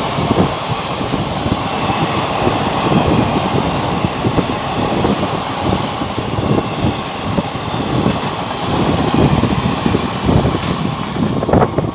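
A train of empty ICF passenger coaches rolling past close by: a steady rumble of wheels on rails, broken by irregular clattering knocks.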